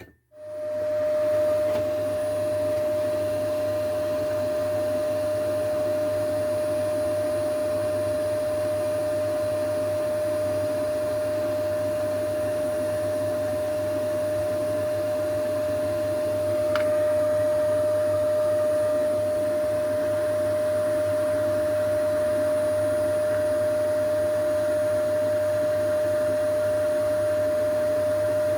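A small electric blower or fan motor switches on and runs steadily, with a constant high whine over a rushing air noise. A faint click comes about two-thirds of the way through.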